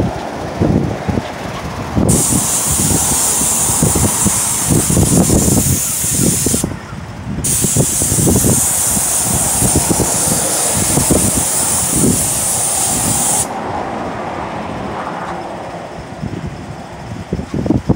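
Airless paint spray gun on an extension pole hissing as it sprays exterior paint: the spray starts about two seconds in, cuts out briefly around seven seconds, and stops a few seconds before the end. An irregular low rumble runs beneath it.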